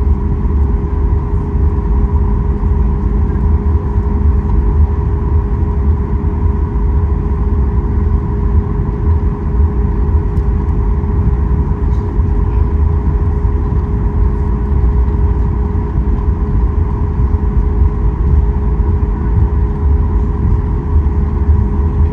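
Cabin noise of a Boeing 737 MAX 8 taxiing: the steady hum of its CFM LEAP-1B engines at low thrust, with two held tones over a low rumble.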